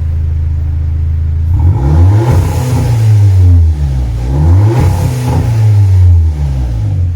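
Audi A3 1.8 turbo four-cylinder idling steadily, then free-revved several times from about a second and a half in, the pitch rising and falling with each blip, with its exhaust valve open.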